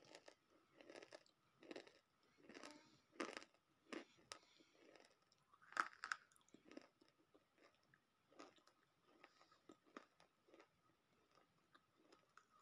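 A person faintly crunching and chewing hard pieces of edible earth, with irregular crisp crunches; the loudest comes about six seconds in.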